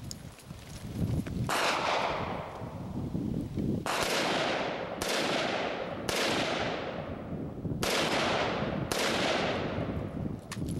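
AR-15 rifle firing six single shots, spaced about one to two and a half seconds apart, each with a long echo fading behind it.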